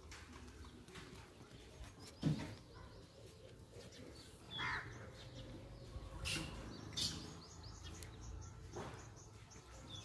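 Birds calling and chirping now and then outdoors, with a single sharp knock about two seconds in.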